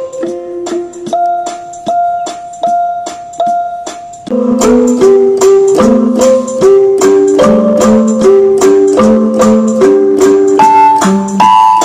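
Background music: a light melody of short, evenly paced notes. It becomes fuller and louder about four seconds in.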